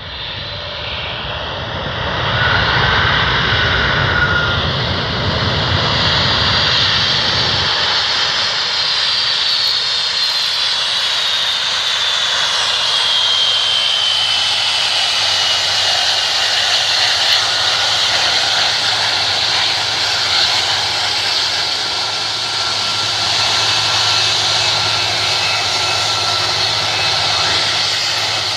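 Boeing 747 jumbo jet's engines roaring as the airliner comes in to land. The sound grows louder over the first couple of seconds, then holds steady. A high whine falls slowly in pitch between about eight and sixteen seconds in.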